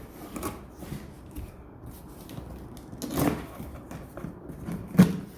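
Cardboard box being handled and opened: a few scattered knocks and rustles, the sharpest one about five seconds in.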